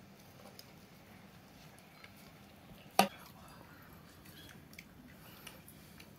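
Quiet background with a few faint small clicks and one sharp knock about three seconds in.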